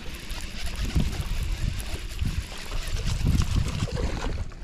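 Water lapping and splashing around a small fishing boat over a low, irregular rumble.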